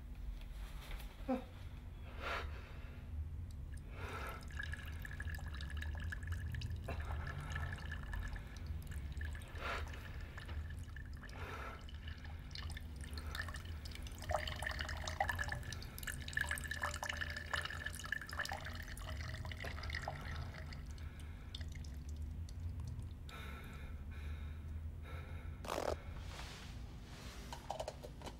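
Liquid dripping and trickling in irregular drops over a steady low hum, with one sharper drop near the end.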